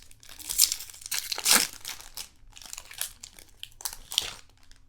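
Foil trading-card pack wrapper crinkling and tearing in a string of short bursts, loudest about half a second and a second and a half in.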